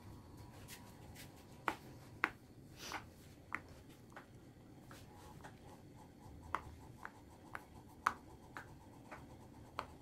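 Silicone Pop It fidget toy bubbles pressed one at a time with a fingertip: faint, short pops, scattered at first, then about two a second in the second half.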